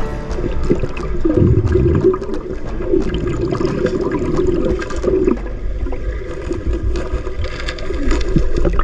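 Muffled underwater sound through an action camera held under water: continuous bubbling and gurgling over a low rumble, with scattered small clicks.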